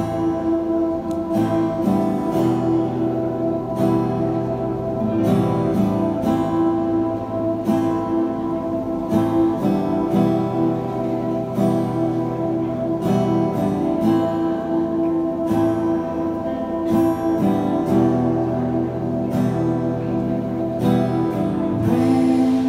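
Live band playing an instrumental passage without vocals: a strummed acoustic guitar over electric guitar and bass guitar.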